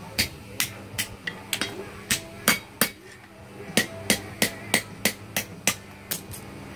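Hand hammer striking hot steel on an anvil: about fifteen sharp, ringing blows at two to three a second, with a short pause about three seconds in. The blows are forging the heated handle end of a knife blank.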